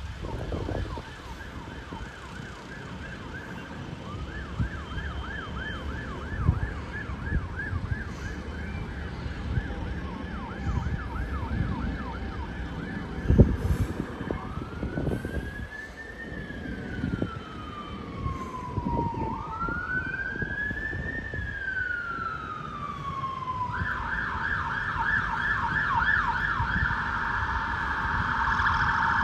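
Fire engine siren: a fast yelp, switching about halfway through to two slow rising-and-falling wails, then back to a louder fast yelp near the end. A single sharp knock sounds about halfway through.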